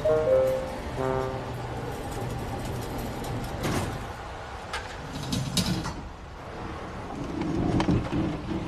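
Background music ends about a second in, then outdoor street noise with scattered rattles and clatters, stronger around the middle and near the end.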